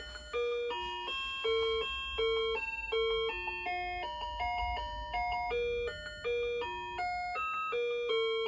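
1994 VTech Little Smart Table Talk activity toy playing a simple electronic tune through its built-in speaker: one plain beeping note at a time, stepping up and down at a brisk even pace, with a longer held note near the end.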